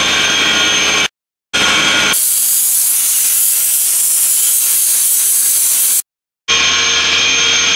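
A loud, steady spray hiss lasting about four seconds in the middle, from a pressurized cleaning spray blasting oil off a leaking rotary screw compressor's shaft seal area. Before and after it, the steady drone and whine of running air compressors, broken by two sudden dropouts to silence.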